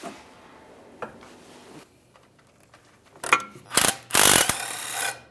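Hand socket ratchet clicking as a bolt is turned out: a couple of single clicks, then a few sharp bursts and a fast run of ratchet clicks lasting about a second near the end.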